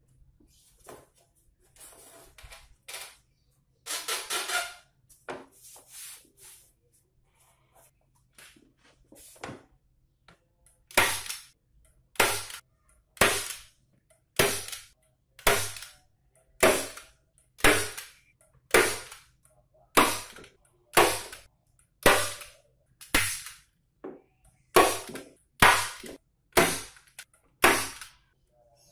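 Hammer blows, struck steadily about once a second in a long run of sharp strikes, after a few scattered knocks and a brief scraping sound near the start.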